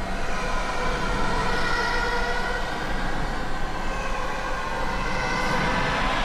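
Dramatic background music of long held, slowly sliding string-like tones.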